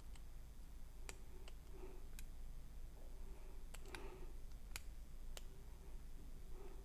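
Scattered light clicks of a lock pick and tension wrench working the pins of a six-pin pin-tumbler lock, coming irregularly, as the picker tries to push a stubborn first pin down to set.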